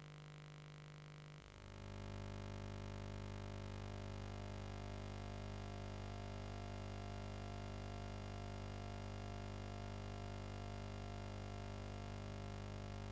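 Steady low electrical hum with its overtones over a faint hiss, from a VHS tape's otherwise silent audio track. The hum steps up in level about a second and a half in, then holds steady.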